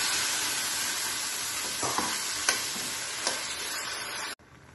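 Onion-and-spice masala sizzling in hot mustard oil in a stainless steel pan as tomato puree is poured in and stirred, with a few clicks of the spoon against the pan. The sizzle cuts off suddenly near the end.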